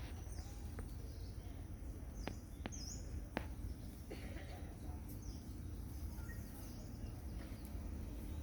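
Outdoor ambience: a steady low background noise with scattered short, high chirps and a few sharp clicks.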